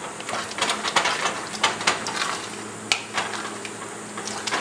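Wooden spoon stirring grated parmesan and butter into thick, creamy risotto in a stainless steel saucepan, with irregular scrapes and taps against the pot, several a second.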